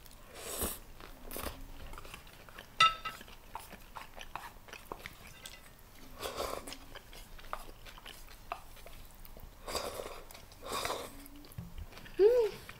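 Close-miked eating of spicy ramen: noodles and broth slurped in several short bursts, with chewing in between. A sharp clink with a brief ring about three seconds in, and a short pitched sound near the end.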